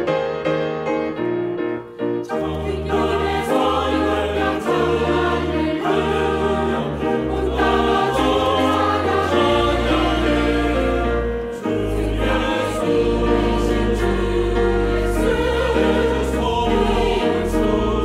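Mixed choir singing a Korean praise song in chorus with piano accompaniment. For about the first two seconds the piano plays alone. Then the full choir comes in over deep bass notes.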